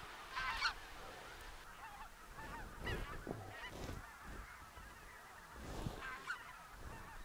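Faint, scattered calls of a flock of geese flying overhead, several short calls overlapping at a time.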